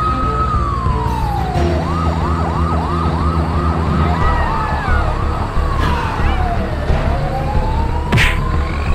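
Emergency-vehicle siren sound effect over a steady low rumble. A slow wail switches for a few seconds to a fast yelp of rapid up-and-down sweeps, then goes back to the slow wail, falling and rising again. A short noisy burst comes near the end.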